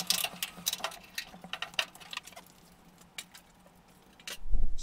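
Scattered light clicks and clinks of metal parts and tools being handled, coming thick at first and thinning out after about two seconds, then nearly quiet.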